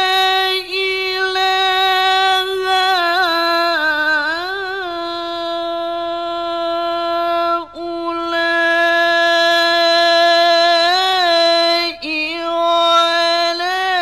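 A man reciting the Qur'an in the melodic tilawah style, his single high voice holding long drawn-out vowels. It wavers through ornamented turns about four seconds in and again near the end, with two brief breaks between them.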